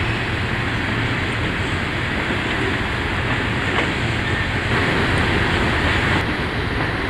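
A coal train's cars rolling past on the rails: a steady rumble of steel wheels on track.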